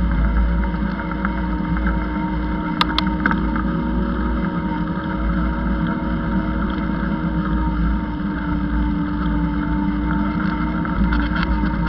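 A vehicle's motor running steadily with a low hum, under a deep wind rumble on the microphone as it moves along. A couple of sharp clicks come about three seconds in.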